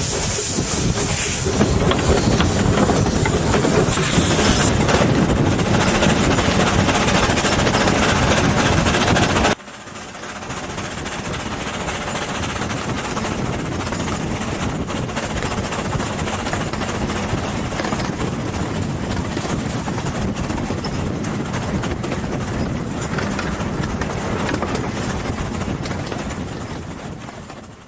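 Narrow-gauge steam locomotive pulling away with a loud hiss of steam for the first few seconds, then working on with its train. About ten seconds in, the sound cuts to a quieter, steady rumble of a narrow-gauge train running past, which fades out near the end.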